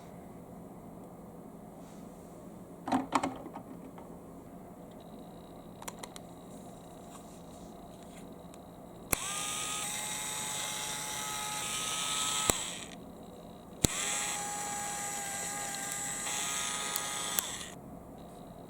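Electric drill running twice, each time for about three and a half seconds, switching on and off sharply with a steady whine. A few short clicks come about three seconds in.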